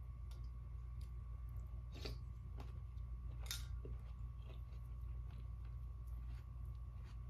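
A person eating with a spoon from a bowl: scattered small clicks of spoon and mouth among the sounds of chewing, the sharpest about three and a half seconds in, over a steady low hum.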